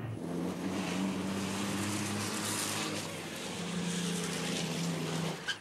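Race trucks' diesel engines running hard past the track, with a steady engine pitch under a thick haze of engine and tyre noise. A short click comes near the end.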